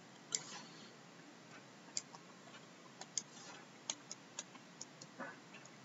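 Faint, irregular clicks and taps of a stylus on a drawing tablet as handwriting is erased and a digit written in. About ten sharp ticks at uneven intervals, the loudest about a third of a second in, with short scratchy pen strokes just after it and around three seconds in.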